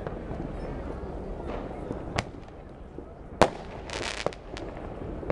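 Fireworks going off: two sharp bangs, the second the loudest, then a short hissing crackle and a few smaller pops.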